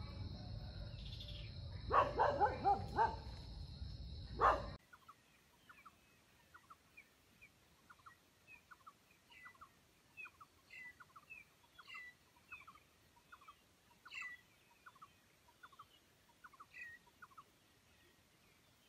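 Wild junglefowl calling: a quick run of loud cackling calls about two seconds in and a single loud call a moment later, over a steady high insect drone. After that the sound drops away to faint, evenly repeated chirps.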